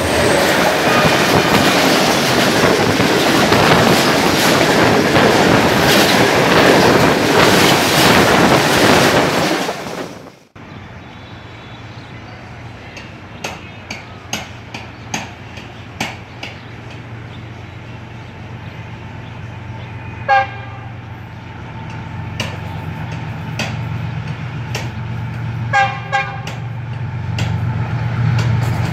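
A loud rushing noise for about the first ten seconds, cutting off suddenly. Then the engine of an approaching Pakistan Railways GEU-40 diesel-electric locomotive grows steadily louder, and its horn sounds one short toot about twenty seconds in and two short toots near the end.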